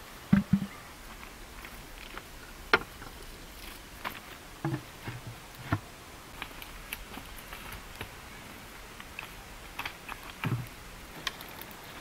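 Wood fire crackling under a clay cooking pot, with irregular sharp clicks and a few dull knocks as the pot and its clay lid are handled.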